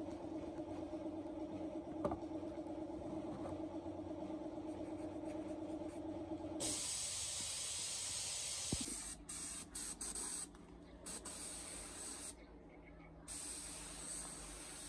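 A workshop machine runs with a steady hum. About six and a half seconds in, it gives way to the hiss of an air spray gun spraying finish onto a buffalo horn, first in one long spray and then in short bursts with brief pauses.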